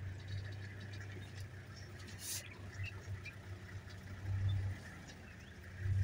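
Low, uneven rumble of a safari vehicle's engine running as it creeps slowly over the grassland, swelling about four seconds in and again at the end, with faint high chirps and small clicks over it.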